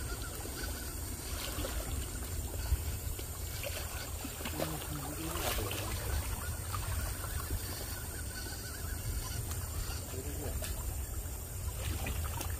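Steady low rumble of wind and river water lapping against a rocky bank.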